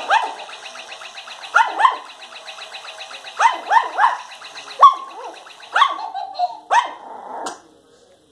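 Yorkshire terrier puppies yapping in short, high barks, about nine in all, over the fast, even ticking of a battery-powered toy mouse's motor, about nine ticks a second, which stops about five seconds in.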